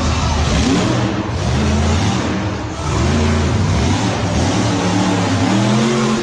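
Monster truck engine revving hard several times, its pitch climbing and falling back in repeated surges over a loud, rough roar.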